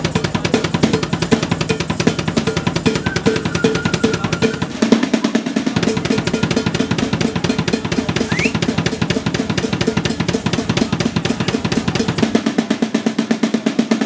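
Pearl drum kit played fast: rapid snare strokes and rolls over the bass drum, with the pattern changing about five seconds in and again near the end.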